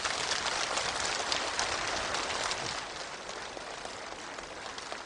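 Large outdoor crowd applauding, a dense patter of clapping that swells in, holds for about three seconds and then thins out.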